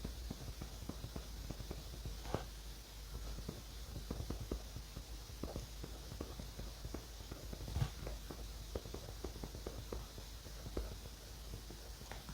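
Pen scratching across notebook paper in short, quick strokes, one after another with small pauses, over a faint low hum.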